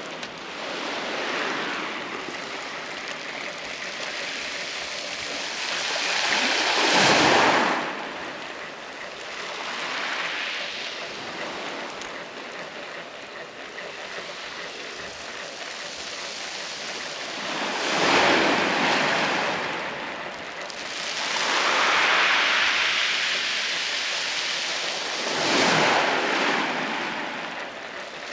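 Small waves breaking on a shingle beach and washing back over the pebbles. The sound swells and fades in slow surges several seconds apart.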